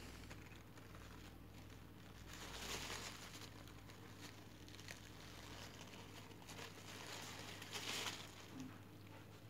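Faint rustling of a paper tissue as hands wipe a plastic lip balm tube, with two louder rustles, about two and a half seconds in and again near the end.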